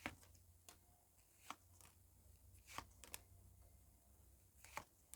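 Tarot cards being handled and laid down: a scattering of short, sharp clicks and taps, about eight in five seconds, over a faint low room hum.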